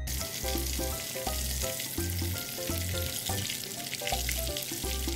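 Chicken pieces deep-frying in hot oil in a pan, a steady dense sizzle, with background music and a pulsing bass beat under it.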